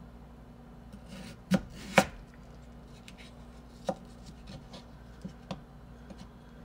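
Kitchen knife slicing through a raw potato into wedges, the blade knocking down onto a plastic cutting board. A short scrape of the blade through the potato leads into two sharp knocks about a second and a half and two seconds in, another near four seconds and lighter taps later.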